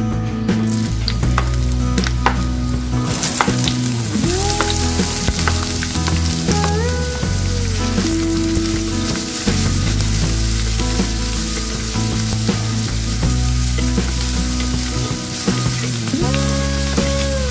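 Sliced onions sizzling in hot oil in a nonstick frying pan, the hiss starting about three seconds in as they go in, then frying steadily while a spatula stirs and scrapes them. Background music plays underneath.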